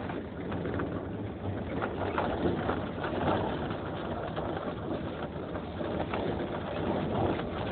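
Windstorm gusting, with a rushing, fluctuating noise and a few short knocks or rattles from loose pieces of the house.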